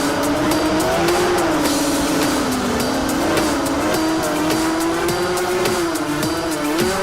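Whine of a ZMR250 FPV racing quadcopter's DYS 2206 brushless motors and 6-inch propellers, its pitch rising and falling as the throttle changes in flight, with music playing over it.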